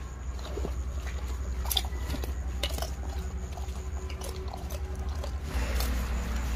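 Sloth bears eating from a pile of peanuts, with irregular crunching and munching as they chew.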